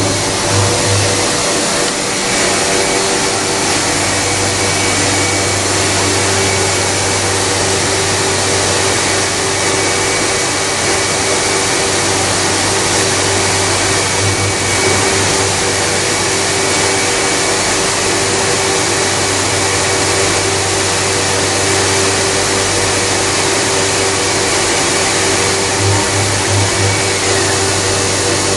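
CMS CNC machining centre running: a steady, loud whirring with a constant hum under it.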